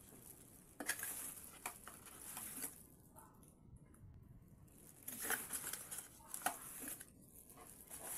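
Faint rustling and crinkling of a cardboard box, its card inserts and plastic wrapping being handled and pulled apart, with a few light knocks of cardboard. It comes in two spells, the first starting about a second in and the second from about halfway.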